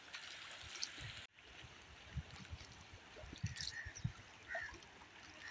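Faint steady rush of river water lapping along a crumbling earth bank being eroded by the river. The sound drops out abruptly about a second in, and there are scattered low thumps and a few short high chirps near the end.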